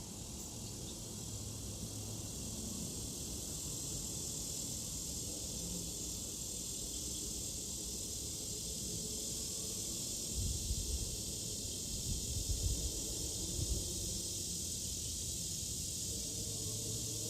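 A cat snoring softly, a steady breathy hiss, with a few low bumps a little past the middle.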